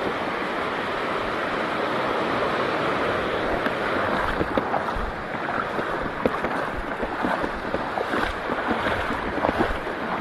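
Steady rush of sea water and surf with wind buffeting the microphone; from about four seconds in, many short, sharp ticks and splashes ride over it.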